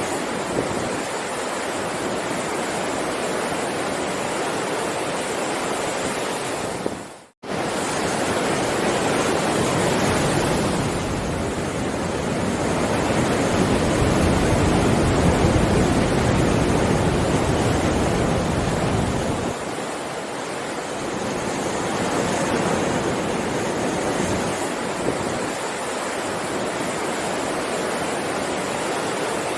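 Heavy ocean surf: a continuous rush of breaking waves, with one wave swelling louder and deeper for several seconds in the middle. The sound fades out and cuts back in briefly about seven seconds in.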